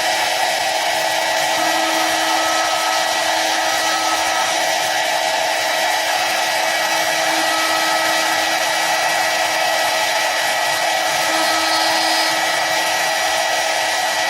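CNC wood turning lathe running: a steady machine whine with a few held tones over a constant hiss.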